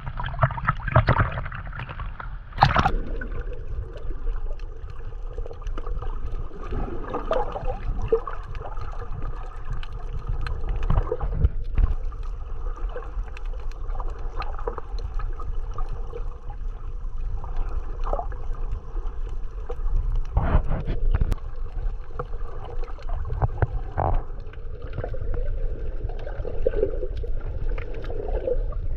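Muffled water sloshing and gurgling heard with the camera under the surface, with a low rumble and scattered clicks and knocks. Splashing in the first few seconds, with the camera at the waterline.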